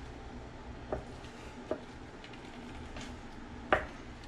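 Hand-held citrus press squeezing a lime half: a few short clicks and knocks, the sharpest near the end, over a quiet steady background.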